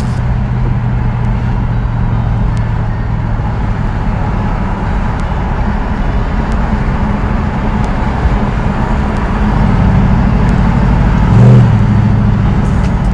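1967 Dodge Coronet 500's V8 engine and exhaust running steadily as the car cruises, heard from inside the cabin over road noise. It gets louder about ten seconds in, with a brief swell of revs near the end.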